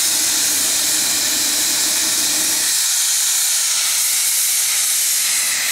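Steam hissing steadily from a fired small steam boiler, with a lower hum under it that stops about two and a half seconds in.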